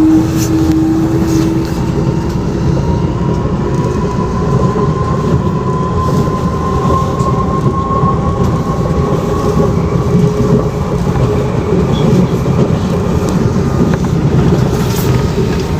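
CPTM Series 7000 electric train running, its traction motors humming over a steady rumble of wheels and running gear. A low tone fades out in the first two seconds, while a higher whine climbs slowly in pitch through the first half and then holds.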